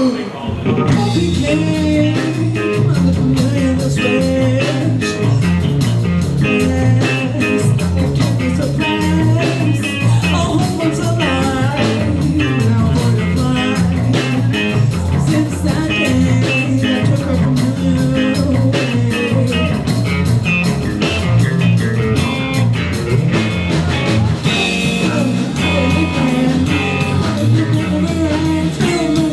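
Live rock band playing a guitar-driven song with a steady beat, the band coming in all together at the start.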